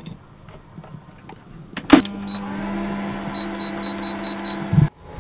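Microwave oven: faint clinks as a bowl is set on the turntable, then the door shuts with a loud click about two seconds in. A steady hum follows, with a quick run of keypad beeps near the end, and the hum stops abruptly with a thump.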